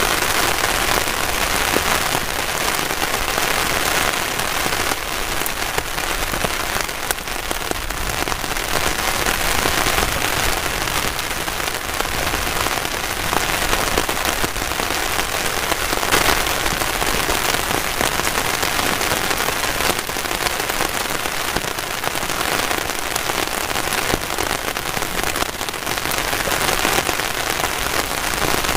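Heavy rain falling steadily on a tarp shelter overhead: a dense, even hiss scattered with sharper single drop hits.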